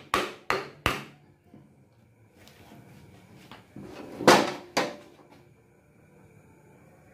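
Piston being tapped down through a ring compressor into a bore of a Mitsubishi 4D56 diesel block with a hammer handle: three sharp knocks about a third of a second apart, ending about a second in. About three seconds later come two louder knocks half a second apart.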